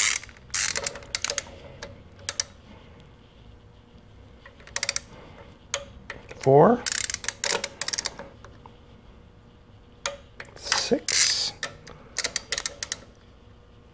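Torque wrench ratchet clicking in short runs as it tightens the gearbox endplate nuts of a Lambretta engine on the final pass to 11 pounds. A brief rising squeak sounds twice, about six and eleven seconds in.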